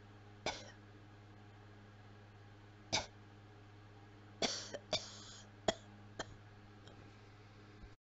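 A person's dry coughs from someone who is unwell. Two single short coughs a few seconds apart are followed by a quick run of about five coughs, then a faint last one.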